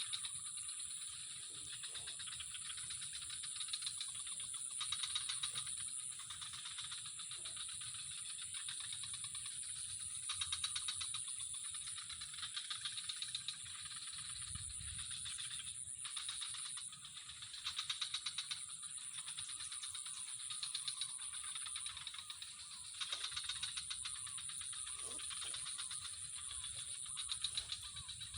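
Steady outdoor chorus of rapid, pulsing trills, typical of night insects, over a constant high-pitched whine, swelling louder every few seconds.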